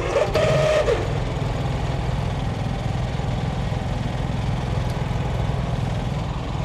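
Honda portable generator's small engine running steadily on fresh oil, test-run right after an oil change. A short, louder noise with a brief steady tone comes in the first second.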